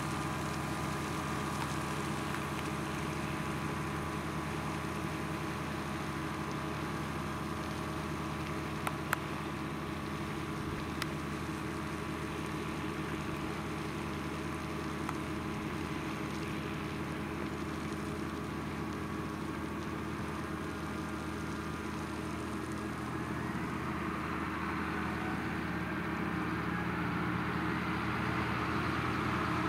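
John Deere tractor's diesel engine running steadily while it spreads slurry through an umbilical drag hose. It grows louder over the last few seconds as the tractor comes closer, with two sharp clicks in the middle.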